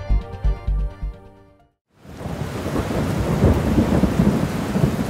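Electronic background music with a steady beat fades out in the first second and a half. After a brief gap, a thunderstorm sound effect starts: heavy rain with rumbling thunder.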